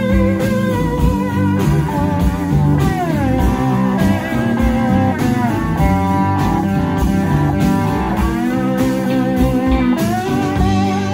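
Rock band playing an instrumental passage: an electric lead guitar holds wavering, sustained notes, glides down in pitch about three seconds in and up again near the end, over bass guitar and drums.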